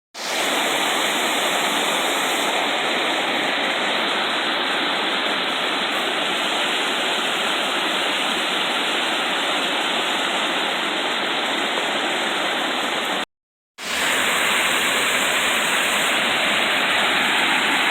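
Steady rushing of a waterfall and stream pouring over rock, broken by a brief dropout about 13 seconds in.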